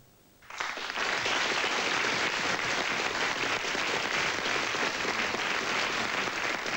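Studio audience applauding. The applause breaks in about half a second in and keeps up steadily.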